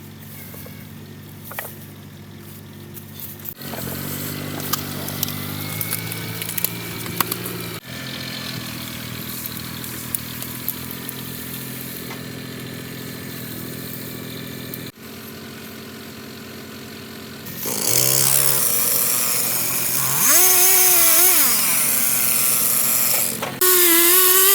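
Motor engines running across several abrupt cuts: first a steady low engine hum, then, in the last third, a louder engine revving up and down in pitch several times.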